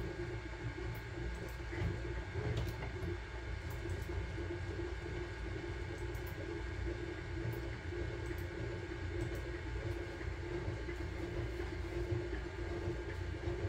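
Sunlu Terminator 3 FDM 3D printer running mid-print: its fans and stepper motors make a steady hum with a thin constant whine above it.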